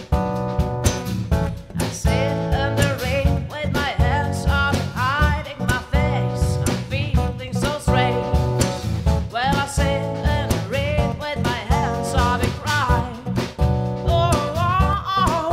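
Acoustic band music: a strummed acoustic guitar keeps a steady rhythm under held chords, with a wavering, bending melody line above it from about two seconds in.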